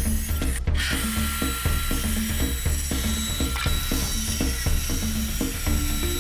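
Background music with a fast, steady clicking beat over a bass line.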